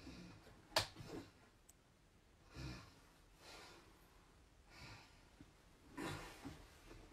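Faint, soft breathing in a quiet small room, a breath every second or so, with a light click near the start.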